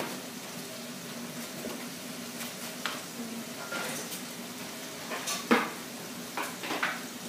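Light footsteps and shuffling on a tile floor and a play mat over a faint steady hum, with scattered small taps and one sharp tap about five and a half seconds in.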